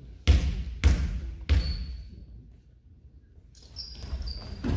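A basketball bounced three times on a hardwood gym floor: a free-throw shooter's dribbles at the line before the shot. Near the end come short high sneaker squeaks as players move for the rebound.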